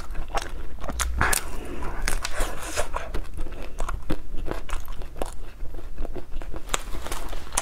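Close-miked crunching and chewing of an ice cream cone's crisp wafer tip: repeated sharp bites and crackles with wet mouth sounds between them.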